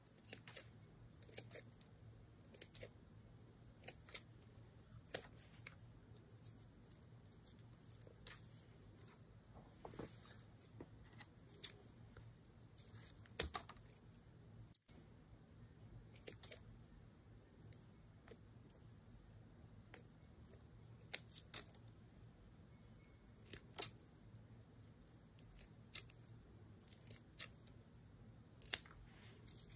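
Scissors snipping through thin plant stems: sharp, separate snips at an irregular pace, about one every second or two, over a quiet room.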